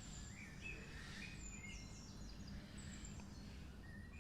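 Faint birdsong: short whistled notes stepping in pitch, repeated several times, over a low steady background rumble.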